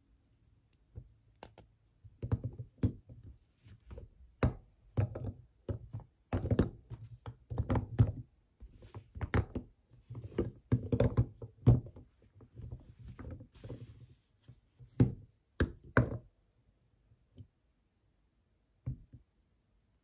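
Bars of Palmolive soap knocking and clunking against one another as hands handle and shift a heap of them: an irregular run of dull knocks, thickest through the middle and thinning to a couple of light taps near the end.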